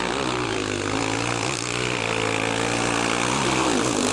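Dirt bike engine running at fairly steady revs under load on a steep climb, its pitch wavering slightly.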